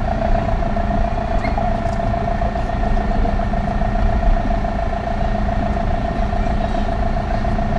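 1977 VW LT 31 fire-brigade truck driving slowly, its engine and drivetrain heard from inside the cab as a steady running noise with a constant tone through it.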